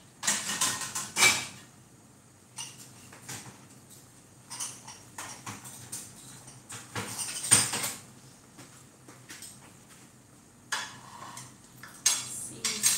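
Dishes and cutlery clinking and clattering in irregular bursts, loudest about halfway through, over a faint steady low hum.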